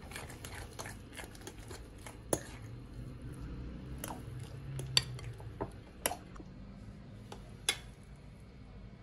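Dishes and utensils being handled: about six sharp clinks and taps at uneven intervals over a low steady hum.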